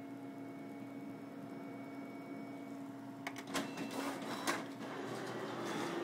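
Office photocopier humming steadily, then about three seconds in a series of sharp clicks and clacks as its mechanism starts a copy run, after which it runs louder and busier.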